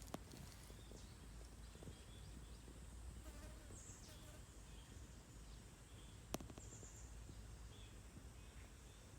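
Faint outdoor ambience: a low rumble with scattered short, faint high chirps, and one sharp click about six seconds in.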